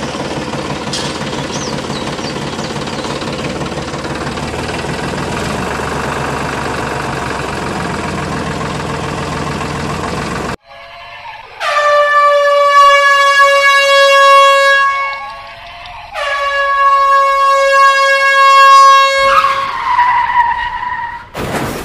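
A steady engine running sound for about ten seconds, which cuts off suddenly. It is followed by two long, loud air-horn blasts, each lasting about three to four seconds.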